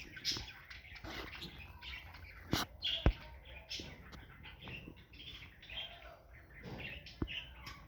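Parrots chirping in many short calls, with a few sharp knocks, the loudest about three seconds in.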